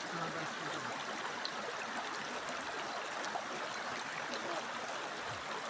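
A stream's water running steadily, an even rushing and babbling without pause.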